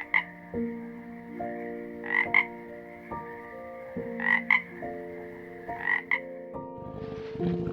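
A frog calling, a quick double croak about every two seconds, four times, over soft background music with held notes.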